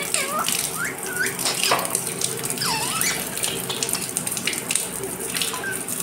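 Water running and splashing over a rose-ringed parakeet being bathed, with a few short squeaky chirps and whistles from the bird, some rising in pitch and some falling.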